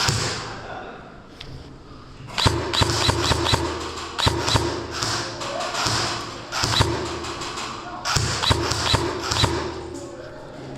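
Airsoft guns firing single shots in quick strings: five sharp snaps in a row a couple of seconds in, two more about a second later, and three near the end, each with a low thud.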